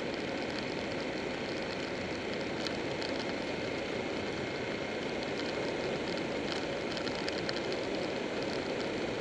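Steady rush of wind and road noise from a Buell 1125R motorcycle riding at speed along a winding road, picked up by a camera mounted on the bike.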